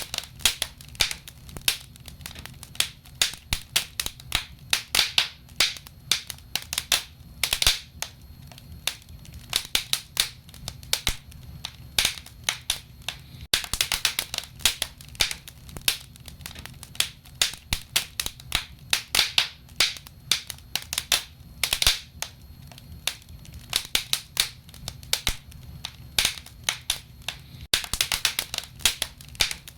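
Wood fire burning in a fireplace, crackling with many sharp irregular pops, several a second, over a low steady hiss.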